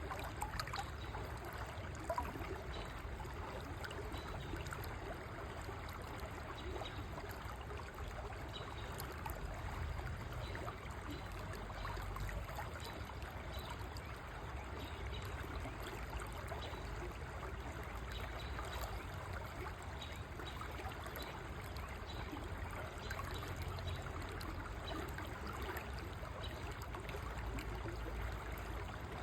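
River water flowing steadily: a low, even rush with a fine trickling, gurgling texture over it. A brief sharper splash or tick comes about two seconds in.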